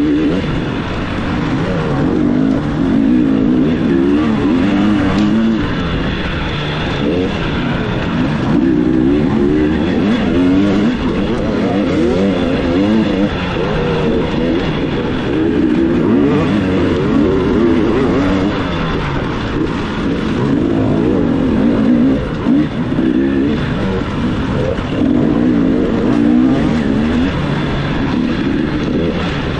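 Dirt bike engine under load, revving up and down over and over as the throttle is worked, rising and falling in pitch every second or two.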